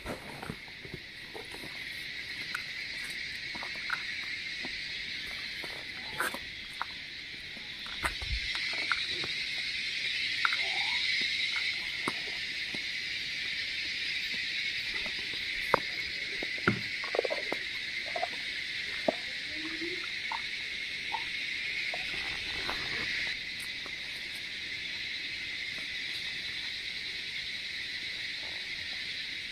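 A knife cutting cashews, almonds and dried dates against a plastic bowl and a wooden board, heard as scattered irregular clicks and taps. Behind them, a steady high chorus of insects.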